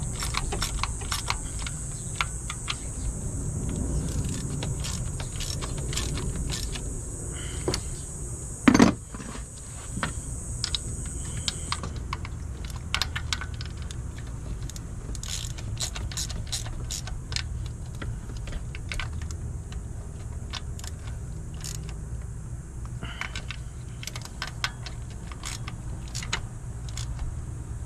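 Hand ratchet and socket extension tightening the thermostat housing bolts on a Chevy Spark 1.2 L engine: irregular ratchet clicks and small metal tool clinks as each bolt is turned down a few turns at a time, with one louder metallic knock about nine seconds in.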